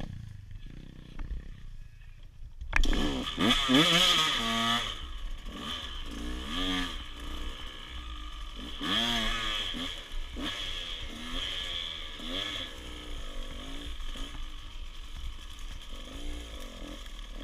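Small dirt bike engine being ridden, revving up and down over and over through the gears, picking up loudly about three seconds in.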